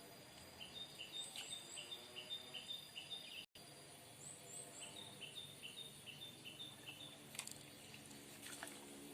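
Faint outdoor bird calls: a run of short, evenly repeated high chirps about three a second, breaking off briefly and then starting again, over a quiet background hiss.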